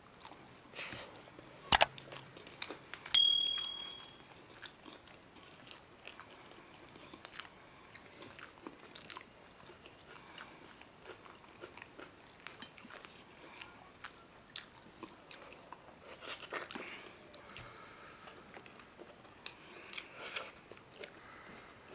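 Close-miked chewing and biting of food, a steady patter of small wet clicks and crunches. A sharp click comes about two seconds in, and a short high beep about a second later.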